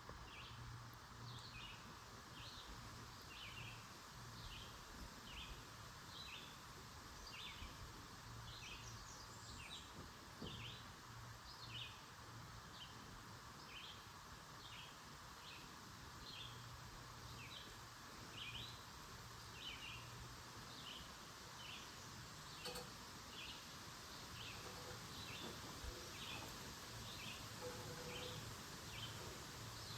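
Short, rising, high-pitched peeps repeated evenly about one and a half times a second, from a single small calling animal. They sit over a faint, steady background hiss of the woods.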